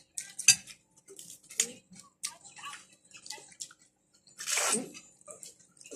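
Close-up wet eating sounds: a string of short smacks and clicks of chewing and sucking, with one longer, louder slurp about four and a half seconds in.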